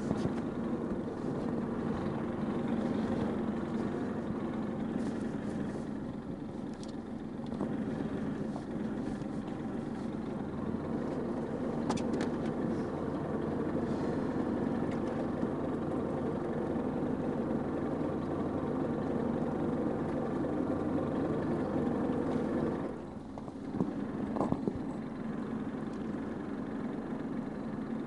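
A boat's engine running steadily, heard from on board. About 23 seconds in it drops briefly, and a couple of short knocks follow.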